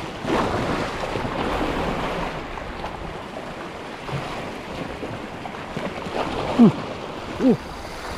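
Sea waves washing against the shore, with wind on the microphone. About two-thirds of the way through come two short cries that fall in pitch, a second apart.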